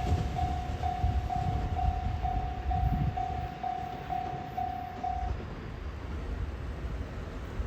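Electronic level-crossing warning bell ringing a single repeated tone about twice a second, then stopping a little over five seconds in once the train has cleared; the low rumble of the departing train fades underneath.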